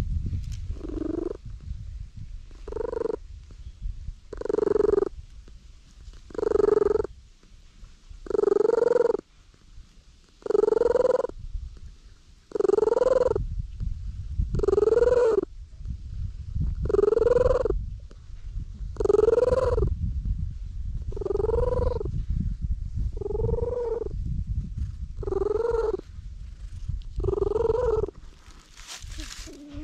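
Tabby-and-white stray cat purring loudly right at the microphone while being stroked, a steady low rumble with a short rising-and-falling voiced note about every two seconds, some fourteen times.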